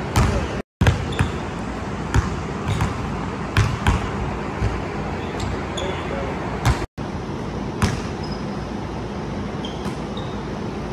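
Basketball bouncing on a hardwood gym floor: sharp, unevenly spaced bounces, several close together and then a gap, over a steady background hiss. The sound cuts out completely for an instant twice.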